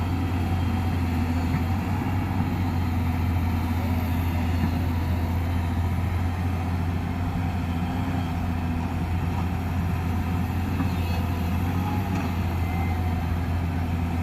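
Excavator's diesel engine running steadily with a low, even hum.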